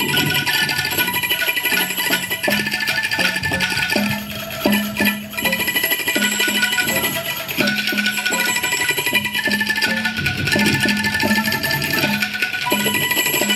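Vietnamese traditional music played on bamboo percussion instruments: struck bamboo tubes and shaken bamboo rattles and clappers. A low note repeats steadily under bright, clicking upper notes.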